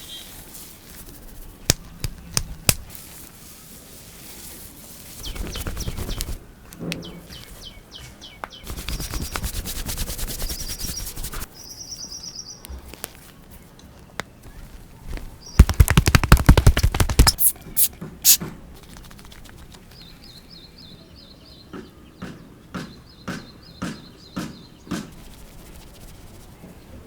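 Massage sounds: sharp clicks and knocks scattered throughout, a rapid loud run of slaps a little past halfway, and stretches of rustling noise. Birds chirp in short repeated calls in the background.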